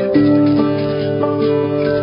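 Background music led by a plucked acoustic guitar, with notes changing every half second or so.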